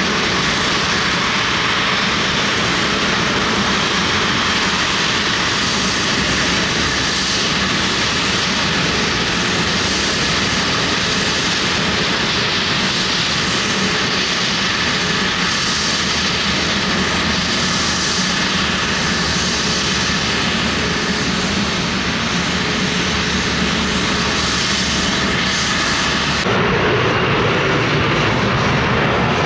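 Airliner engines running loud and steady close by. The sound changes abruptly near the end, with the high hiss dropping away.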